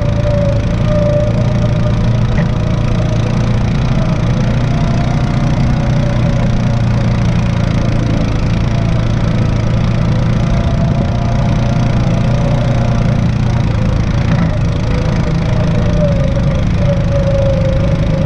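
Off-road vehicle engine running steadily on the move: a low drone with a wavering whine above it.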